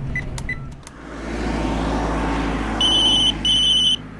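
A few sharp clicks, then a vehicle rumble swells up, and near the end two short high electronic beeps, a phone-like ring tone.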